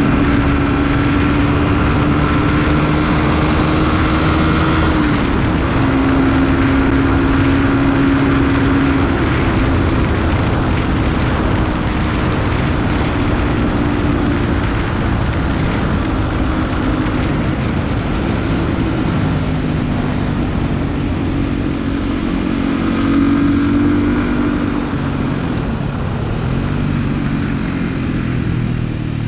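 Beta RR 125 LC enduro motorcycle's single-cylinder engine running steadily under way, its note shifting slightly down and up with small throttle changes.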